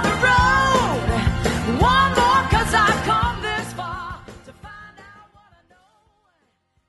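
A song with a singer over a full band, fading out from about four seconds in until it is gone near the end.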